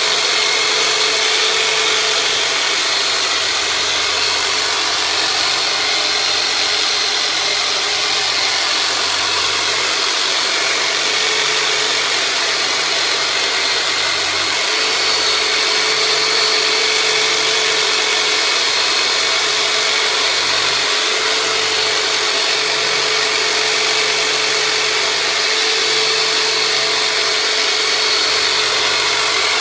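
Large handheld electric massager, the 'turbonator', running steadily during myofascial release work on the pelvis. Its motor hum wavers in strength every few seconds.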